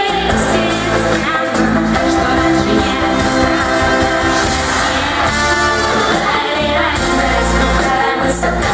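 Live pop music: a woman singing into a handheld microphone over a loud amplified band backing, without a break.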